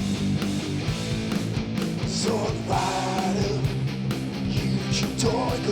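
Rock music with electric guitar, and a singing voice coming in about two seconds in and again near the end.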